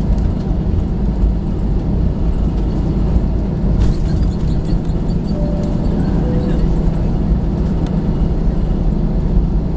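Steady low rumble inside an Airbus A321 airliner's cabin as its jet engines run, with a light click about four seconds in.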